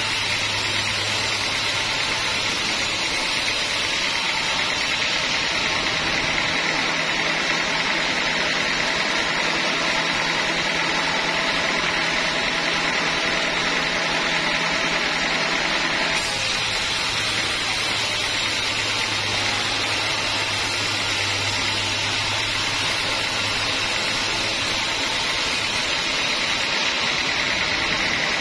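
Log band saw mill running and sawing through teak logs, a steady, loud mechanical noise with no pauses.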